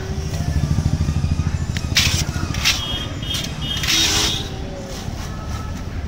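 Low, pulsing engine rumble of passing street traffic, strongest over the first three seconds. Short gritty scraping bursts come about two, three and four seconds in, as popcorn and hot sand are scooped and stirred in an iron kadai.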